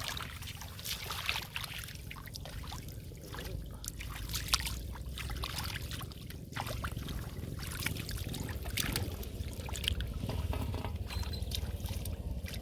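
Water splashing and trickling, with many irregular sharp splashes and drips over a steady low rumble.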